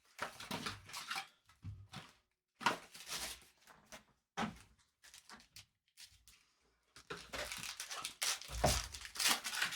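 Packaging of a trading-card hobby box being torn open and handled: irregular bursts of crinkling and tearing, with brief pauses.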